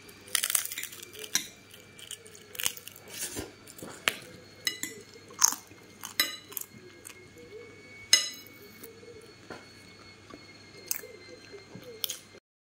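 Irregular sharp clicks, knocks and crunches of kitchen work with utensils, dishes and crisp food, stopping abruptly near the end.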